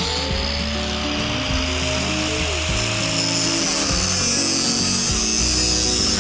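Power tool cutting through the steel bars of an IBC tote cage: a steady, high-pitched hissing cut that starts right at the beginning, its motor pitch rising as it starts and sagging a little under load about halfway through. Background music plays underneath.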